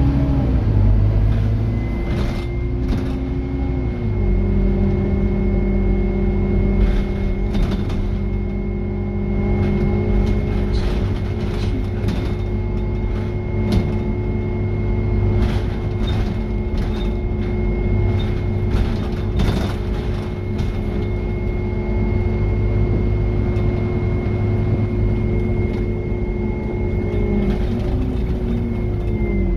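Scania N230UD OmniDekka double-decker bus under way, heard from the upper deck: its five-cylinder diesel engine and drivetrain run with a steady note and a thin high whine, with short rattles and knocks from the body. The engine note shifts in the first few seconds, holds steady, then drops near the end as the bus slows.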